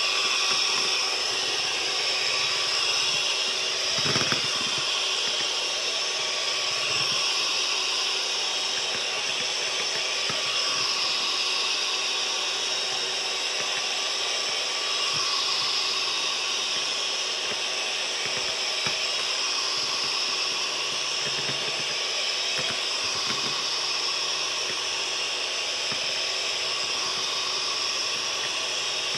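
Electric hand mixer running steadily, its beaters whipping cream in a steel bowl, a constant motor whine and hiss. There is one brief knock about four seconds in.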